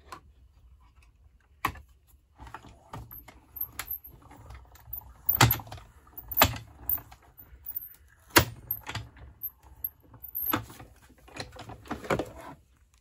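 Hand-cranked die-cutting machine feeding a stack of acrylic cutting plates with metal dies through its rollers, giving a run of sharp plastic clicks and clacks, the loudest about five to eight and a half seconds in.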